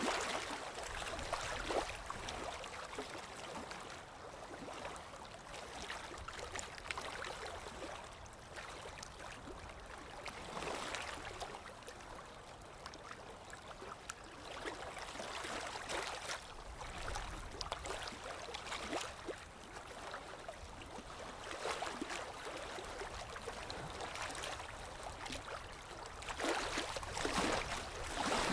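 Water lapping and splashing gently, swelling and easing every few seconds, with a low rumble of wind underneath.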